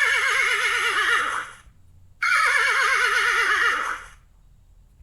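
Horse neighing twice, each a long whinny of about two seconds with a quavering pitch.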